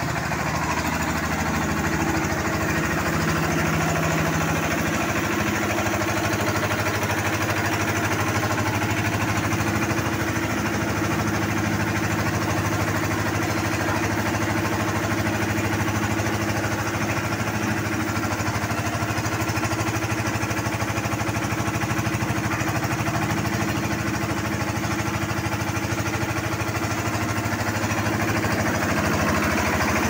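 Concrete mixer machine's engine running steadily at an even speed.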